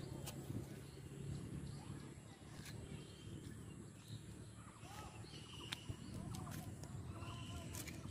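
Faint outdoor ambience: a low steady rumble with scattered short bird chirps, mostly in the second half, and a few light clicks.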